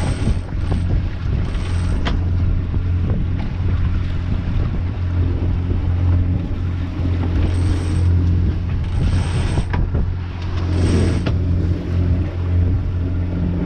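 The sailboat's inboard engine running steadily under way, a low even drone, with wind and water noise around it. A line being hauled in by hand adds several short high-pitched zips at uneven intervals.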